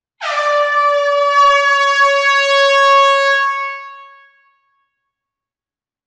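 A single long air-horn-style blast, one steady buzzy tone rich in overtones, that fades out after about four seconds.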